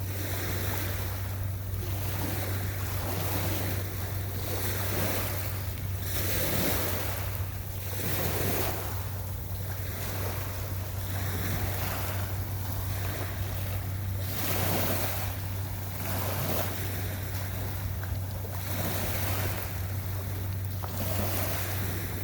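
Waves washing in on a beach, the surf swelling and falling back every second or two, with wind and a steady low hum underneath.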